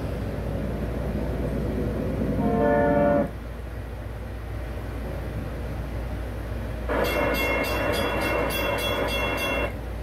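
A train horn sounds twice. The first blast is a short chord about two seconds in. The second is louder and fuller, starts about seven seconds in and lasts nearly three seconds, with a rapid flutter in its top notes. A steady low hum runs underneath.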